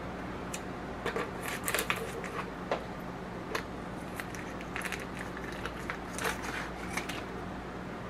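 Kitchen shears snipping open a plastic pack of sauced ribs, with scattered crinkles of the plastic and clicks of the blades, busiest in the first couple of seconds.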